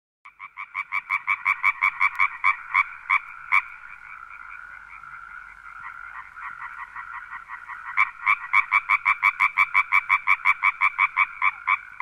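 Frog calling in fast, evenly repeated croaks, about six a second, fading in at the start. From about 4 s to 8 s the croaks drop to a softer continuous chorus, then come back loud.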